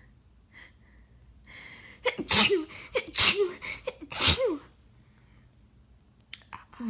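A woman sneezing three times in quick succession, about a second apart, after a sharp breath in. It is part of an ongoing sneezing fit.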